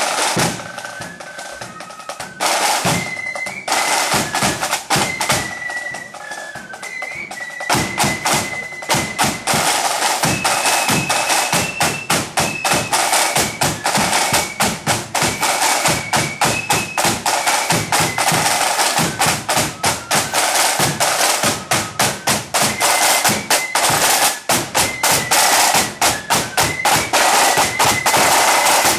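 Blood-and-thunder flute band on the march: snare drums beating fast patterns and rolls with a bass drum, and flutes playing a melody over them. The drumming grows louder and denser about eight seconds in.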